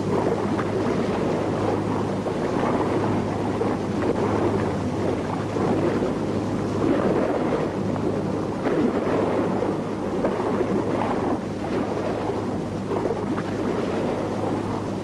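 Choppy sea water rushing and splashing, a continuous noise that swells and eases, over a steady low hum.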